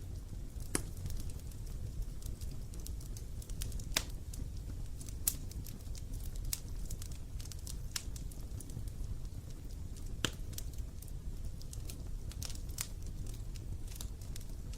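Wood bonfire crackling: irregular sharp pops and snaps, a few louder ones among many small ticks, over a steady low rumble.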